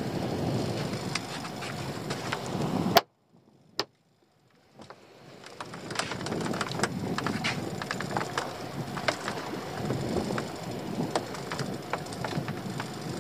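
Wind on the microphone and water slapping against a small open boat, with scattered light clicks and knocks. About three seconds in, a sharp click is followed by the sound cutting out almost completely for about two seconds before it fades back in.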